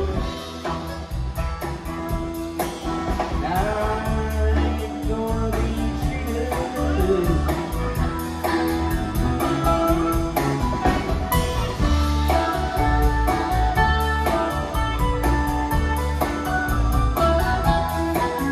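Live blues-rock band playing an instrumental passage: electric guitar, electric bass, keyboards and a drum kit with a steady beat, with a harmonica played into the vocal microphone, its long notes bending in pitch.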